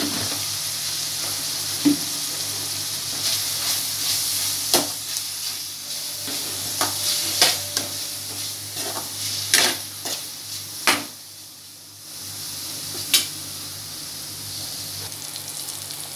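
Chikkudukaya (flat beans) frying in oil in a pan, a steady sizzle, as a steel spatula stirs chili powder through them, scraping and knocking against the pan several times. The sizzle drops off briefly about two-thirds of the way through, then picks up again.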